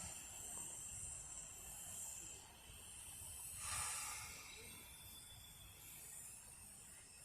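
Steam locomotive hissing steam: a soft steady hiss with a stronger burst about four seconds in, over a low rumble.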